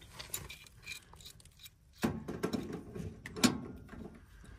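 Light metallic clinks and handling noise as a crescent wrench is brought onto a brass line-set fitting on a heat pump's service valve. There are scattered small clicks, busier from about two seconds in, and a sharper click about three and a half seconds in.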